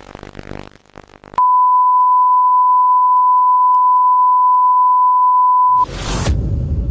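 A steady electronic sine-wave beep, one unwavering mid-pitched tone held for about four and a half seconds, cutting off abruptly. Just before the end a rush of noise with a low rumble comes in.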